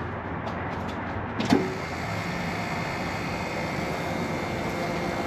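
A sharp click about a second and a half in, then the truck's electric fuel pump running steadily, pumping fuel out of the disconnected line into a glass bottle. The bottle is filling up fast, showing the pump delivers fuel; the fuel itself looks watered.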